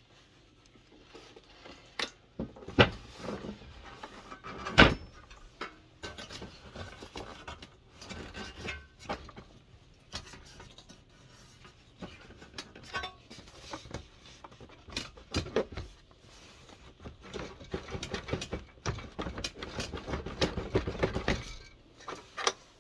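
Metal parts and tools clinking, knocking and scraping as a diesel heater is taken apart by hand. There are two sharp knocks in the first five seconds and a busier stretch of rattling and rubbing near the end.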